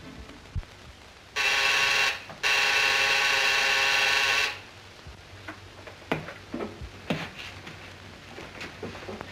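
Electric buzzer sounding twice, a short ring and then a longer one of about two seconds, each starting and stopping abruptly. A few light knocks and clicks of someone moving about follow.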